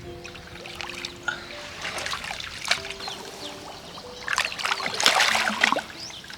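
Water splashing and trickling in irregular bursts, loudest about four to six seconds in, over soft background music with held notes.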